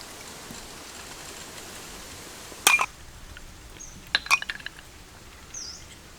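A few sharp clinks and clicks: one loud one about two and a half seconds in, then a quick cluster of them a little over a second later. A short high chirp, like a bird's, comes near the end over a steady background hiss.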